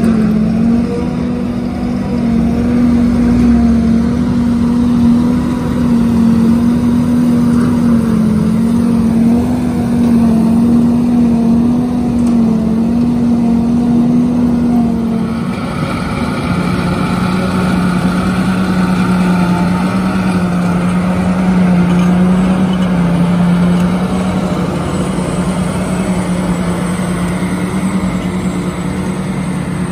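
Self-propelled forage harvesters at work chopping hay and blowing it into a silage trailer: a loud, steady machine drone with a strong hum. About halfway through the machine changes from a Claas Jaguar to a John Deere 8600, and the hum drops a little in pitch.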